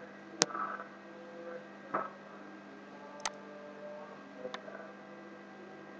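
Computer mouse clicking four times, sharp short clicks spread over a few seconds, over a steady electrical hum.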